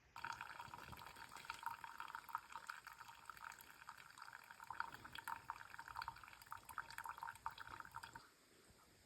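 Faint water running and trickling, steady with small crackles, for about eight seconds before it stops abruptly.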